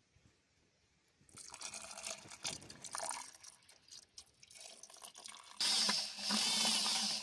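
Liquid blue pigment being poured and scraped into a bucket of lime plaster, with irregular wet slopping and clicks. About five and a half seconds in, a drill-driven paddle mixer starts suddenly and runs steadily, churning the plaster.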